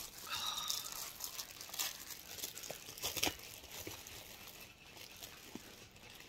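A bag crinkling and rustling as it is handled and opened, the crinkling dying down after about four seconds.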